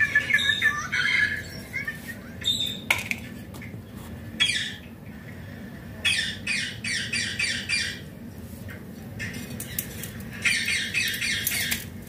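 A parrot squawking in runs of quick, harsh repeated calls, with a longer run of about eight calls around six seconds in and another near the end.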